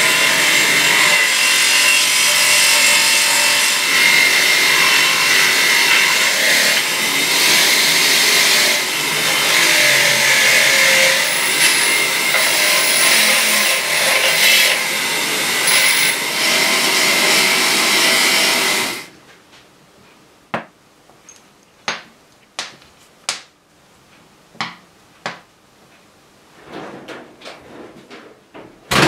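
Bench grinder running, with a rusty brake master cylinder body and small steel parts pressed against its spinning wheel to clean off rust and deposits: a loud grinding hiss over a steady high whine. The grinding stops suddenly about 19 seconds in, and a run of light knocks and clicks follows as parts are handled.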